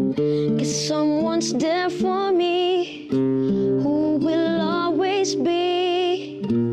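A song: a solo singer's voice holding notes with vibrato, with short breaks between phrases, over a strummed acoustic guitar.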